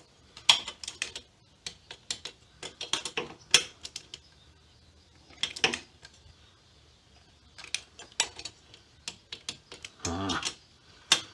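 A ratcheting torque wrench worked in short strokes, its pawl clicking rapidly in bursts while it draws down cylinder head bolts at 60 inch-pounds.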